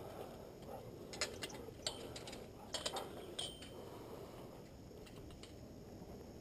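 Chain-link kennel gate and its metal latch being closed: a run of sharp metallic clicks and clinks, one with a brief ring, over a couple of seconds, then quiet outdoor background.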